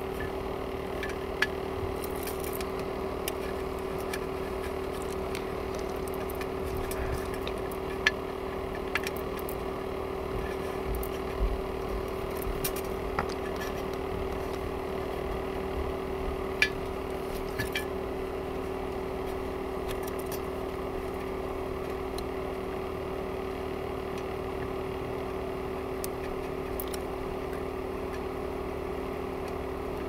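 A steady background hum with a few light clicks and taps now and then, from small parts and a soldering iron handled on a metal work surface.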